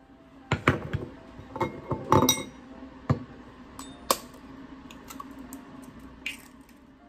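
An egg is tapped against the rim of a ceramic bowl to crack its shell: a run of sharp clinks and knocks in the first two and a half seconds, then single knocks at about three and four seconds.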